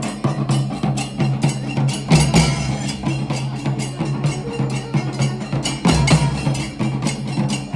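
Music with a fast, even percussion rhythm of sharp, clicky strikes, about five or six a second, over a steady low bass.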